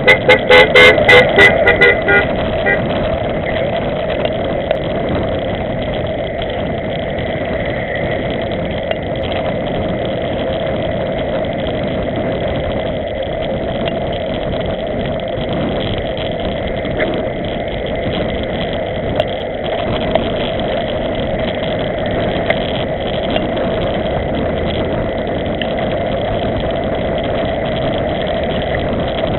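Steady rush of wind and tyre noise from a road bike riding fast over brick paving, picked up by a camera on the rider. A quick run of short pulsing tones sounds in the first two seconds.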